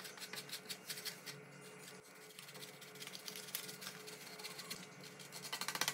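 Frozen shortcrust dough being grated on a metal box grater: light scraping strokes, coming in a quick rapid run near the end.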